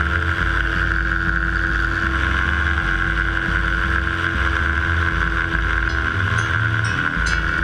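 Ultralight trike's engine and propeller running steadily in flight, with wind buffeting the helmet-mounted microphone.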